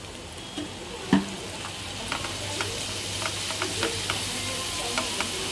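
Onion and spice masala frying in mustard oil in a non-stick pan, sizzling after a splash of water, while a spatula stirs and scrapes it with many small clicks. A sharp knock about a second in, and the sizzling grows louder about two seconds in.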